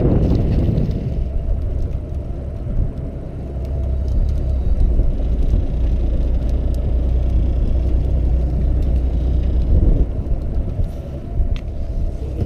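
Fishing boat's engine running with a steady low rumble, mixed with wind buffeting the microphone.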